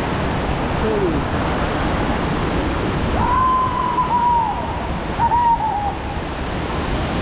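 Steady rushing of a waterfall. About three seconds in, a long high tone sounds over it and falls slightly at its end, followed by a shorter wavering tone about two seconds later.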